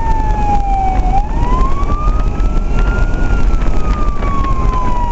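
Fire engine siren in a slow wail: the pitch falls for about a second, rises for about two seconds, then falls again. Under it is the steady low rumble of the truck's engine and road noise, heard from inside the cab.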